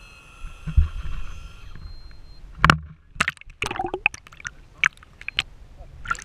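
A camera plunging into seawater: a sharp splash about two and a half seconds in, then underwater gurgles, bubbles and scattered clicks. A steady high whine runs for the first second and a half before the plunge.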